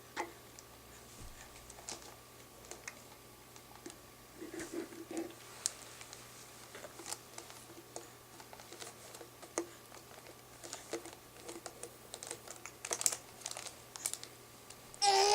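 Faint scattered clicks and light rustling, with a brief soft baby sound about four to five seconds in. Near the end a seven-month-old baby breaks into a loud, high chirping squeal.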